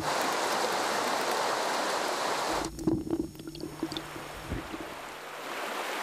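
Shallow stream water rushing and splashing over stones. Just before halfway it briefly gives way to a few dull low thumps, then the rushing resumes.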